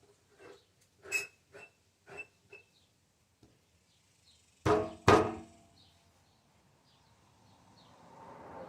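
Handling knocks at a chop saw: several light taps and clunks, then two loud sharp clunks with a brief ring about half a second apart, a little past the middle. Near the end a rushing noise swells up.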